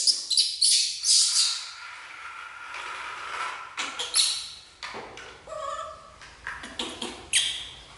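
Baby macaque giving short, high-pitched squeals again and again, with a towel rubbing over it.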